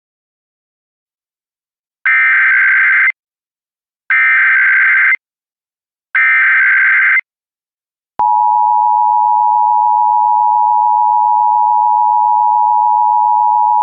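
Emergency Alert System SAME header: three one-second bursts of warbling digital data tones about two seconds apart, followed about eight seconds in by the steady two-tone EAS attention signal.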